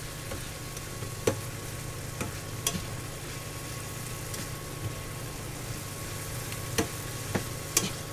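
Green beans and mushrooms sizzling in a pan as the added water cooks off, with a few sharp clacks of the utensil against the pan as they are stirred, the loudest about a second in and several near the end.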